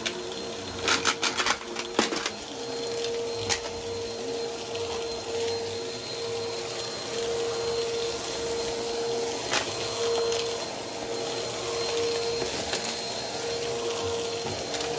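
Bagless upright vacuum cleaner running steadily over carpet, with its motor humming. About one to two seconds in there is a quick run of crunching clicks, and a few single clicks follow later.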